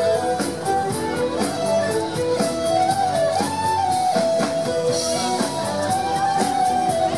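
Live band music: strummed guitar and mandolin-type string instruments with a steady beat under a held, stepping melody line.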